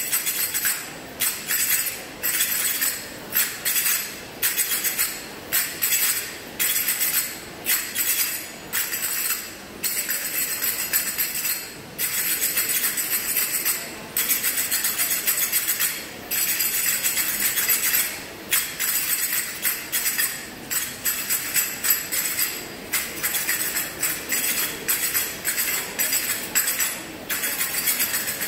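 Several dancers' finger cymbals (zills) playing together, a fast bright ringing rhythm in short repeated phrases broken by brief pauses.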